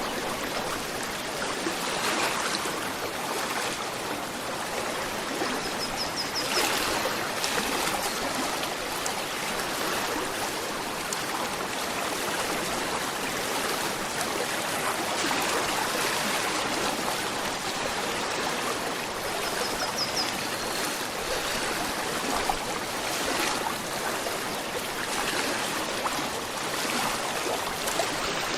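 A gentle river flowing in a steady, even rush of running water. Two brief high chirps, about a fifth of the way in and again past two-thirds.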